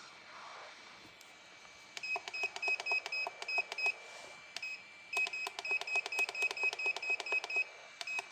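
Electronic beeping from a soldering and hot-air rework station: two runs of short beeps, about five a second, the first lasting about two seconds and the second about two and a half, over a steady high whine.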